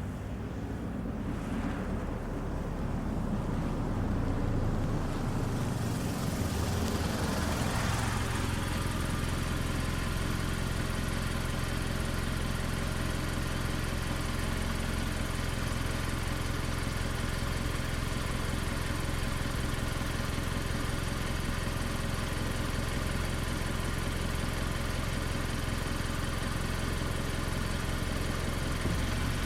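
Mazda CX-5 small SUV pulling in, growing louder over the first seven or eight seconds as it arrives, then its engine idling steadily.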